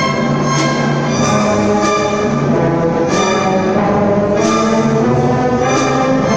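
Symphony orchestra playing a sustained, full chordal passage, with sharply accented attacks recurring about every second.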